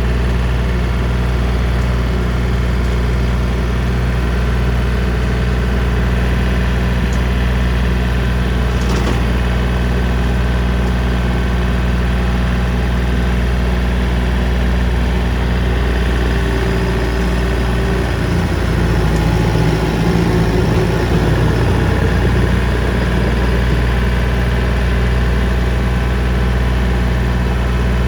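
John Deere 3025D compact tractor's three-cylinder diesel running steadily under load while driving a PTO brush hog (rotary cutter). About two-thirds of the way through the sound grows a little louder and rougher for a few seconds, then settles back to a steady drone.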